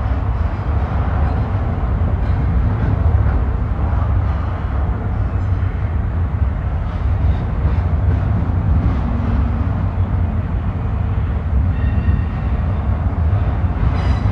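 Double-stack intermodal freight train rolling past, a steady low rumble of wheels on rail.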